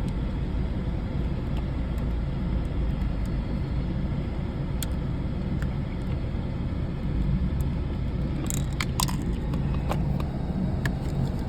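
Small plastic clicks and taps as a new type 74 wedge bulb is worked into the center console light socket, a few scattered and then a cluster about two-thirds of the way through, over a steady low rumble.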